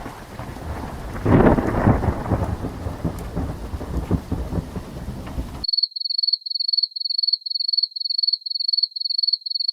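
Thunder rumbling over rain, with a loud swell about a second in, cutting off abruptly after about five and a half seconds. It is followed by a rapid high-pitched electronic beeping, about three beeps a second.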